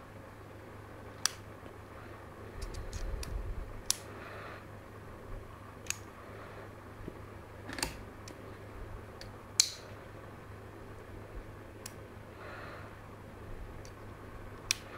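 Small metal sections of a magnetic pen, made of stacked rare-earth magnets, clicking sharply against each other as they are pulled apart and handled, a click every second or two with a short flurry of lighter clicks and handling rumble early on.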